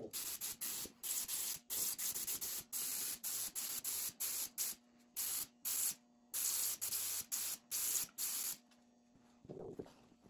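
Spray painting in many short hissing bursts, the spray starting and stopping abruptly again and again before it stops near the end.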